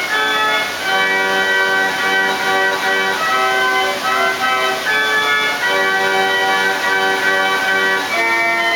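The Villa d'Este hydraulic water organ, a water-and-air-powered pipe organ, playing a tune in held chords that change every second or so. A steady hiss runs underneath.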